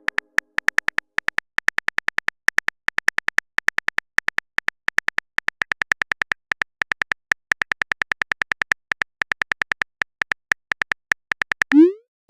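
Rapid phone-keyboard typing clicks, several a second in an uneven rhythm, each a short high tick. Near the end a short rising blip like a message-sent tone.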